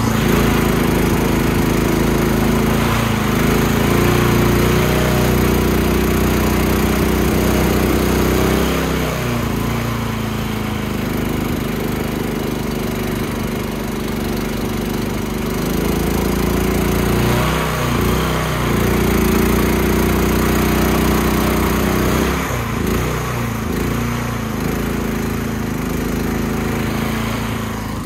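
Boat's Predator small gas engine running at speed under way, its steady note dipping briefly a few times and recovering, with the rush of water and wind past the hull.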